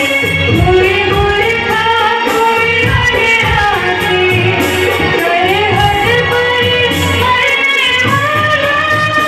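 A girl singing a patriotic song in held, gliding melodic lines over a Bollywood-style backing track with a steady low beat.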